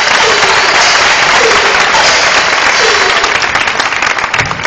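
Audience applauding, dense at first and thinning into separate claps near the end.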